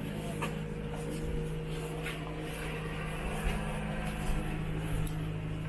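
A motor engine running steadily with a low, even hum, with a few light clicks and the general clatter of a busy street over it.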